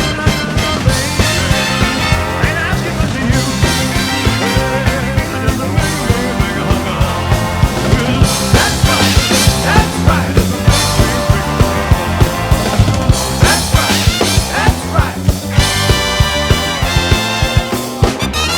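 Rock and roll band recording playing an instrumental passage with a steady, driving beat.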